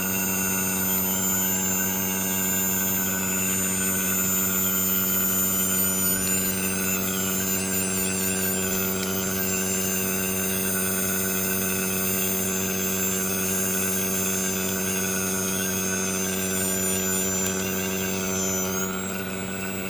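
Steady electric machine hum: a constant low drone with a faint high whine above it that wavers in pitch now and then.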